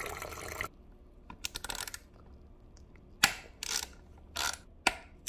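A stream of green coolant pours from the engine's bleeder into a plastic container and stops under a second in. Then come scattered small metallic clicks and scrapes from a long screwdriver working the coolant reservoir's mounting screw, the sharpest about three seconds in.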